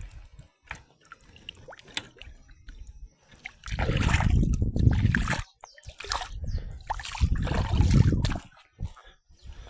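Water splashing and sloshing in two loud bouts, the first starting a little under four seconds in and the second about seven seconds in, after a few faint clicks.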